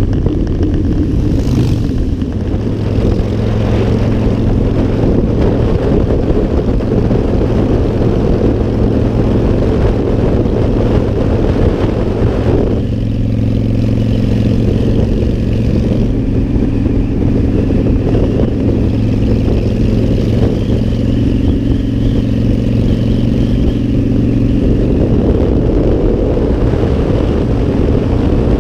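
Motorcycle engine running steadily at cruising speed, with wind rushing over the microphone. The sound shifts abruptly about halfway through, then goes on steady.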